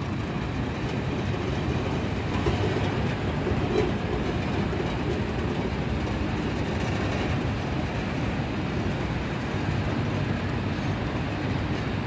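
Torpedo ladle cars of a molten-iron train rolling past on rails: a steady rumble of steel wheels on track.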